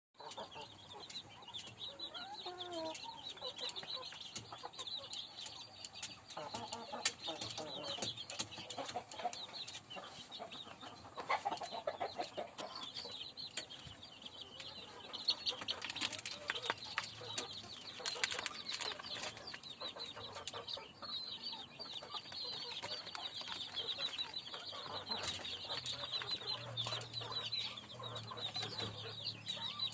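Kampung chickens (Indonesian native chickens) in a coop, clucking now and then over a constant high-pitched chirping, with scattered sharp taps.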